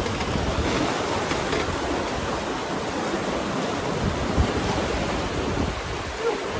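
Fast, rough river water rushing around a drift boat, with wind rumbling on the microphone.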